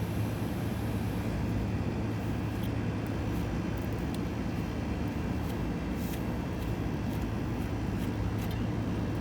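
Steady low machinery hum and rush, with scattered faint light ticks.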